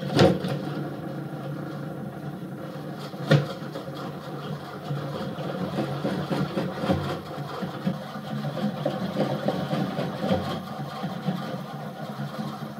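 Tactile transducers inside a wooden seismic-shaker seat vibrating the box and a glass jar on top, replaying a recorded earthquake from Japan: a rough, steady mechanical rumble that starts suddenly, with a sharp knock about three seconds in.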